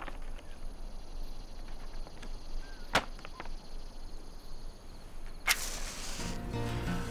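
Two sharp cracks, about three seconds and five and a half seconds in, the second louder and followed by a brief rustling tail, over a low background hiss; music starts near the end.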